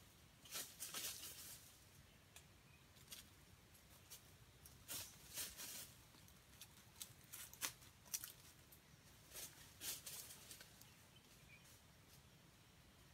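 Faint, scattered crackles and rustles in dry leaf litter, a few short clusters against near silence, as a wild junglefowl rooster steps and forages through the fallen leaves.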